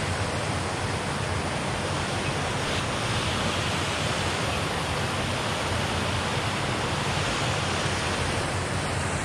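Muddy stream water pouring over a low concrete weir: a steady rushing noise.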